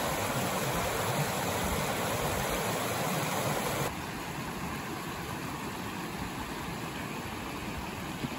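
Mountain stream rushing over rocks, a loud, steady rush of water. About four seconds in it drops suddenly to a softer, steady rush.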